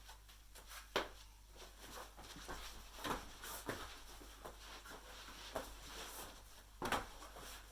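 Scattered knocks, bumps and rustling of a person getting down and moving about on the floor, with two sharper thumps, one about a second in and one near the end.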